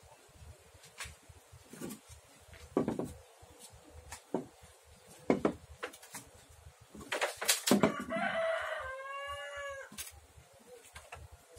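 A rooster crowing once, about eight seconds in, with scattered light knocks as an aluminium spirit level is set down and moved on the plywood bottom of a wooden tub.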